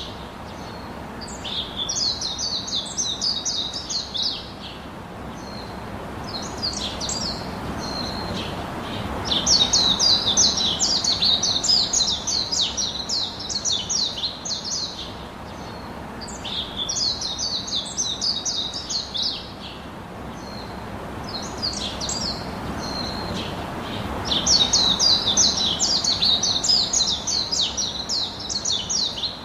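Birds chirping in rapid, high-pitched bouts a few seconds long, five times, with short pauses between, over a steady background hiss.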